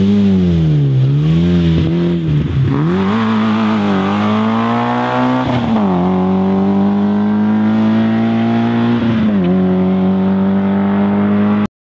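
Rally car engine running hard. The revs rise and fall for the first few seconds, then climb steadily under acceleration, with two sharp dips that sound like gear changes, and hold high between them. The sound stops abruptly near the end.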